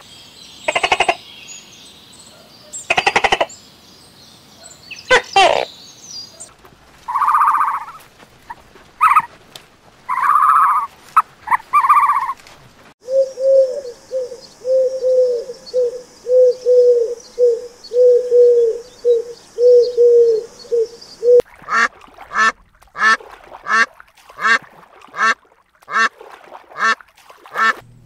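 A sequence of different animal calls: a few loud harsh cries in the first six seconds, then several shorter calls, then a rapid run of low calls at about two a second over a steady high hiss, and finally a quick string of short, sharp calls.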